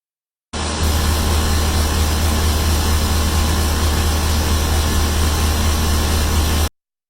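A machine running steadily, with a strong low hum under a broad rushing noise; it starts suddenly about half a second in and cuts off suddenly shortly before the end.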